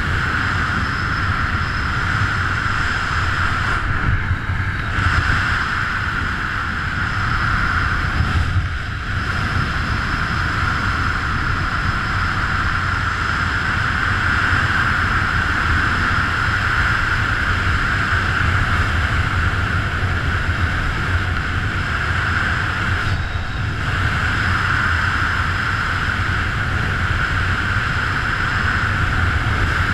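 Steady rush of wind over the camera microphone from the airflow of a fast speed-wing descent, with a low rumble and a hissing band. It dips briefly a few times.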